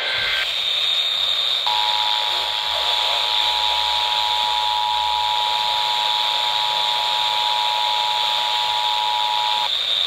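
Emergency Alert System two-tone attention signal coming from a Midland weather radio's small speaker on an FM station. The steady dual tone starts about two seconds in and lasts about eight seconds, over loud static hiss from weak reception, and stops just before the end.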